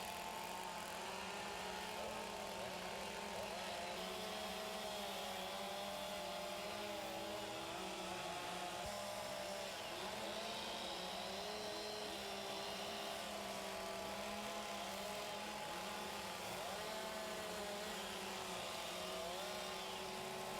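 Several chainsaws running together as they carve wood, a steady, dense engine noise whose pitches keep wavering up and down as the saws bite and rev.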